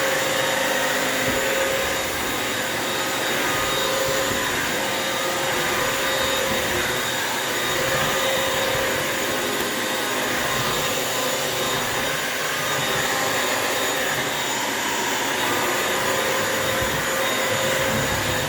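Bissell vacuum mop's motor running steadily, an even whirring rush with a steady whine in it.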